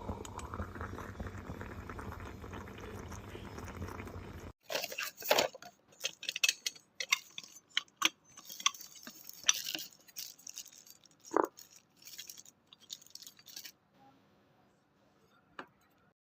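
Moka pot gurgling with a steady hiss, which stops abruptly about four seconds in. Then comes a run of clinks and clatters of metal and glass being handled, with one ringing clink.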